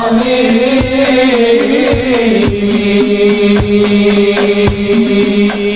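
Devotional chant music: a wavering sung line over long held drone notes that settles into the steady drone after about two seconds, with drum beats about twice a second.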